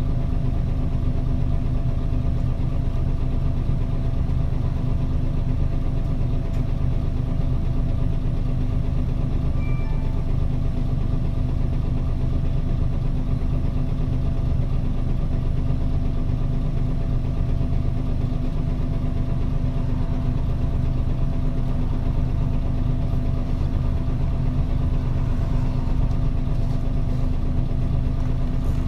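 Diesel engine of a 2008 Nissan Diesel Space Runner RA city bus (PDG-RA273KAN), heard from inside the bus, running at a steady, unchanging hum as at idle.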